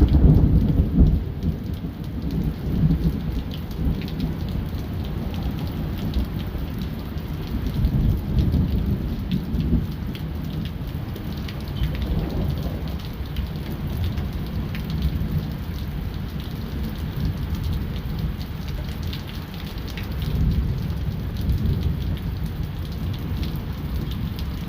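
Thunderstorm: steady heavy rain with scattered drop ticks, under low rolling thunder that is loudest right at the start and swells again about eight and twenty seconds in.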